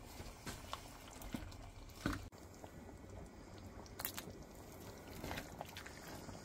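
Wooden spoon stirring chunky tortellini soup in a stainless steel pot: faint wet squelches with scattered light taps, the loudest about two seconds in.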